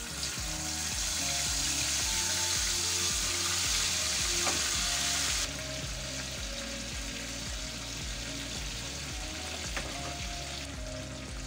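Marinated rabbit pieces frying in hot extra virgin olive oil in a frying pan. The sizzle is loud while the pieces go into the oil, drops suddenly to a quieter steady frying after about five seconds, and carries on while the pieces are stirred with a fork.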